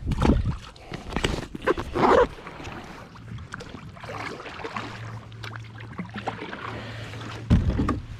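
Knocks, clunks and rustling of gear being handled aboard a fishing kayak, loudest in bursts near the start, around two seconds in, and just before the end.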